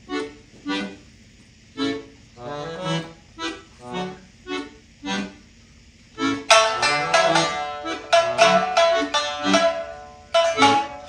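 Accordion and shamisen duo playing a Japanese-style piece. It opens with soft, spaced short notes about every half second. About six and a half seconds in, the music turns much louder and denser, with sharp plucked attacks over sustained accordion chords.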